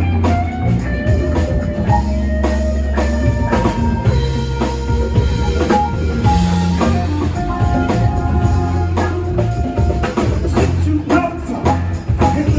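Live band playing an instrumental passage: a drum kit keeping a steady beat with kick and snare under held bass notes and melodic lead lines.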